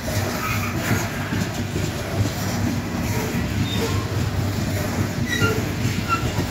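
Loaded coal hopper cars rolling past, their steel wheels rumbling and clattering on the rails. A few short, high wheel squeaks come about five to six seconds in.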